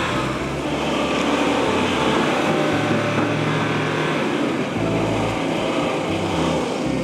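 Four-wheel-drive engines revving and straining under load as a pickup truck pulls a bogged vehicle through mud on a recovery strap. The pull does not free the stuck vehicle.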